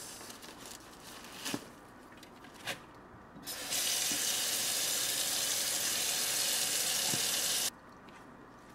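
Kitchen faucet running water over a plate of fresh herbs into a stainless-steel sink. The steady rush starts about three and a half seconds in and is shut off suddenly about four seconds later, after a couple of light knocks.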